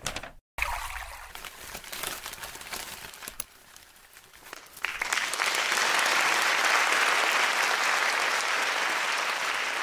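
Scattered crackling clicks, then about five seconds in a crowd starts clapping; the applause holds steady and slowly fades.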